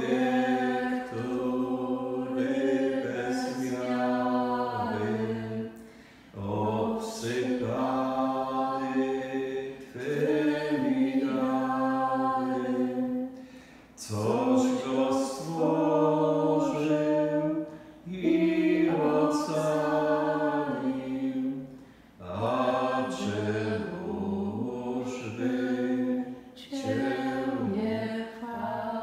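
A man's voice singing an unaccompanied chant, with no instruments. He sings in phrases of about four seconds on held, stepwise notes, with a short pause for breath between each, about seven phrases in all.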